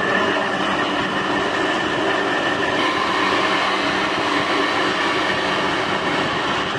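Air conditioner outdoor unit running: a steady mechanical hum from the compressor, with a couple of constant tones in it. The condenser fan motor has failed and is not turning, which is why the unit is not cooling and the compressor is running very hot.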